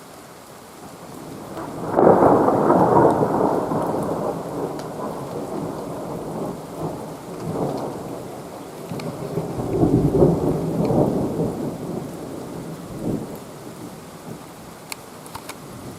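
Thunder rolling: a rumble builds and breaks loudly about two seconds in, swells again around ten seconds, then dies away.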